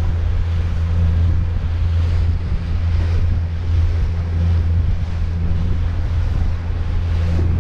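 Wind buffeting the microphone over the steady low drone of a small motorboat running at speed, with water rushing and splashing along the hull.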